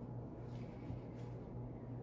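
Room tone: a low steady hum, with a few faint soft scuffs about half a second to a second in.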